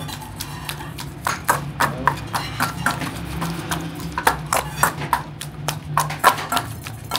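Metal dizi masher pounding the meat and chickpea solids of abgoosht in an aluminium bowl: short knocks of metal on metal, about three a second, starting about a second in.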